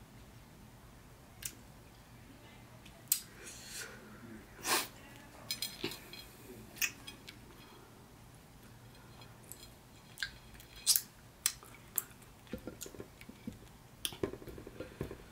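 Close-up eating sounds: irregular wet clicks and smacks as fingers pull apart pieces of stewed beef, along with chewing. The clicks come in clusters, busiest in the second half.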